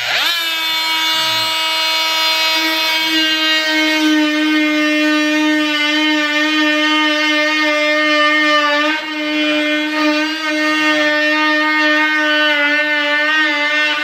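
Dremel Multi-Max MM45 oscillating multi-tool starting up and running at its top speed setting, its round blade cutting into pine door casing. It is a steady, high-pitched buzz that rises quickly to speed at the start and wavers slightly as the blade bites into the wood.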